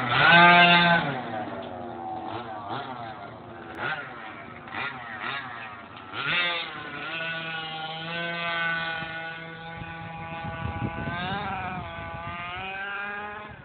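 Small engine of a gas-powered RC buggy running as the car drives off, its pitch rising and falling with the throttle. It is loudest in the first second, revs sharply about six seconds in, then runs steadier before another rise near the end.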